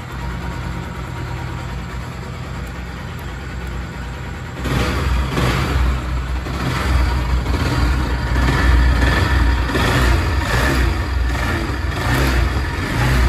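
Bajaj Pulsar AS200's single-cylinder engine idling, running on a freshly fitted stock air filter. About five seconds in it gets louder as the throttle is blipped in repeated revs, roughly once a second.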